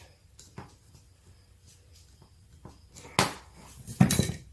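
Light clicks and handling noise, then two sharp knocks about three and four seconds in: metal parts of an old hand-operated drill press being handled and set down as it is taken apart.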